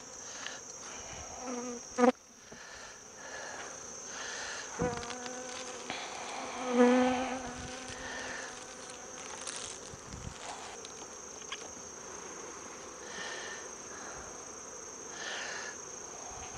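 Honeybees buzzing around an open hive, one bee passing loud and close to the microphone about seven seconds in, over a steady high-pitched insect trill. A couple of sharp knocks in the first five seconds.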